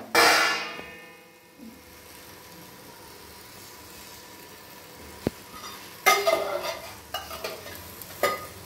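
Cooked rice being spread and layered into a biryani pot by hand, making a loud rustle in the first second and a cluster of short scrapes and rustles near the end, over a faint steady sizzle from the pot.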